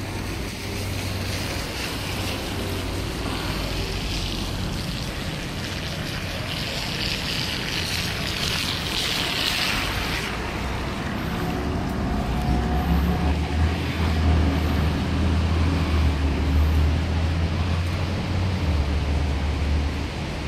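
Steady outdoor noise with wind on the microphone and a hissing swell around the middle. About halfway in, a low, steady engine rumble from a nearby vehicle comes in and holds.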